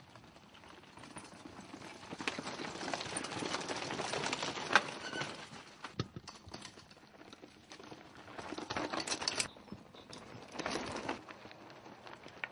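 Mountain bikes riding over a stony dirt trail: tyres crunching and clattering on loose stones in several bursts as riders pass, with one sharp knock near the middle.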